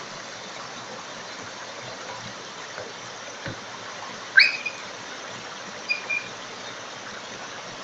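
Water pouring steadily over a low river weir. About four seconds in a short, loud, high call rises in pitch and holds briefly, and two short high notes follow about two seconds later.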